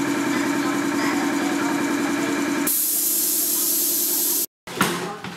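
A steady mechanical drone, replaced abruptly about halfway through by a loud hiss of spray that cuts off suddenly near the end; a knock follows.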